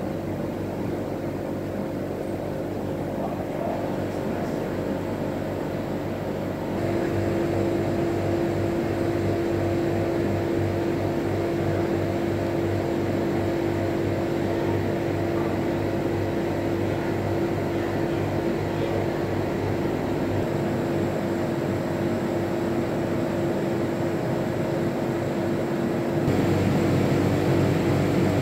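A steady mechanical hum: a low drone with a clear held tone above it over a soft hiss, stepping up in level about seven seconds in and again near the end.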